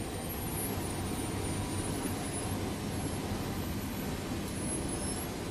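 Eicher truck's diesel engine running steadily as the truck drives slowly over a dirt track, heard from inside the cab as an even, low rumble with no changes in pitch.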